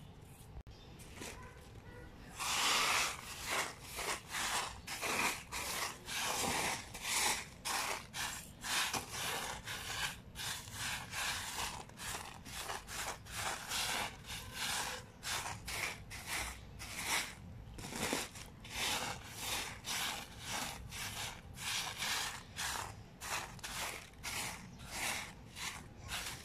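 Crushed eggshell fragments crunching and rustling on a woven plastic sack as a hand sweeps and spreads them, in repeated strokes about twice a second. The strokes start a couple of seconds in.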